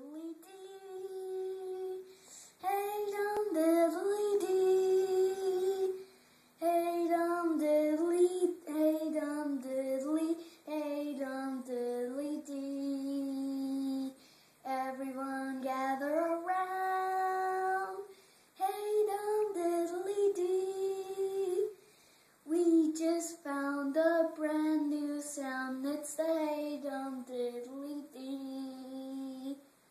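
A young boy singing a song on his own, without accompaniment, in sung phrases broken by short pauses.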